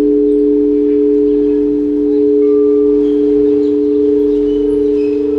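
Quartz crystal singing bowls ringing: several pure tones held together in a steady, sustained hum, with a slow wavering pulse coming in near the end.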